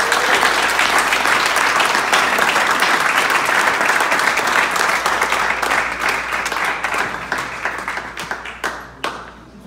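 Audience applauding, a dense clapping that thins out and fades away over the last few seconds.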